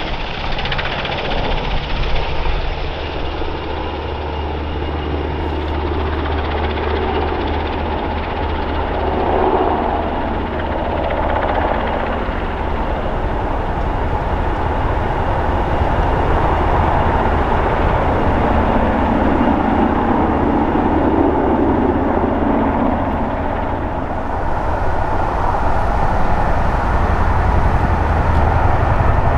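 Steady rumble of military helicopter rotors and turbine engines in flight, an NH90 among them. Near the end it changes to a Chinook's engines and tandem rotors running on the ground.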